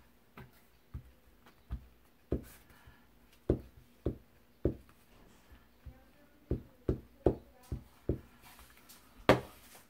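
Light knocks and taps of hands handling paper scraps on a cutting mat: about a dozen irregularly spaced taps, with a sharper, louder one near the end.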